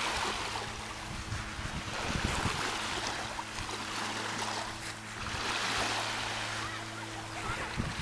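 Small waves lapping on a pebble-and-sand beach of a calm sea, washing in and out about every three seconds, with a faint steady low hum underneath.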